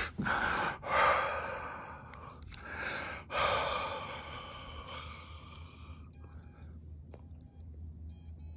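Breaths blown into a handheld breathalyzer: a few sharp breaths, then a long steady blow from about three seconds in. After that the breathalyzer beeps in short, high, rapid clusters about once a second as it processes the breath sample.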